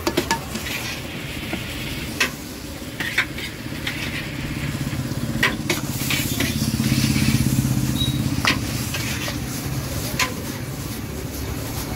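Chicken and peppers sizzling in a wok as they are stir-fried, with a steel ladle clanking and scraping against the wok several times. A low steady rumble runs underneath and grows louder between about 4 and 9 seconds in.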